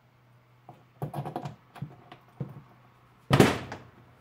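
Plastic Can-Am LinQ 32-gallon trunk lid and its latches being handled: a run of sharp clicks and rattles, then one loud thump about three seconds in as the lid comes down shut onto the latches.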